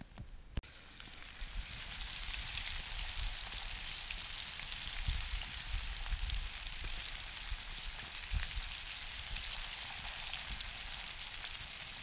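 Brook trout fillets sizzling in a frying pan over campfire coals. The sizzle builds up over the first second and a half and then holds steady, with a single sharp click near the start.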